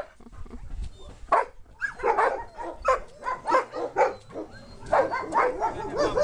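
Several dogs barking and yipping. A few separate barks at first, then from about two seconds in a dense run of overlapping barks.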